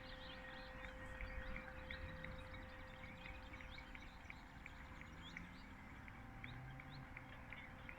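Small birds chirping in quick, irregular short notes over a faint distant din with a steady low tone.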